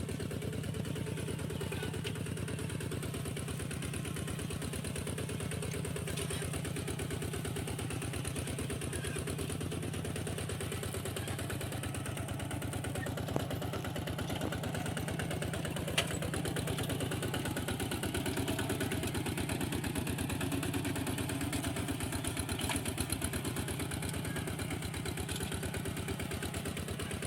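Two-wheel walking tractor's engine running steadily with a rapid, even putter, with two sharp knocks about halfway through.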